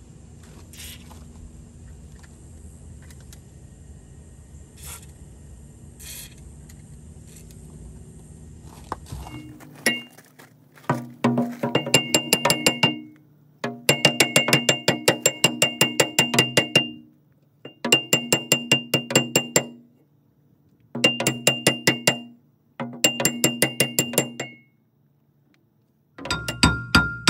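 Impact wrench hammering in bursts of one to three seconds, many blows a second, the metal ringing with each blow, while trying to break loose a stuck part on a rotary cutter. Before that, a steady low rumble stops about nine seconds in.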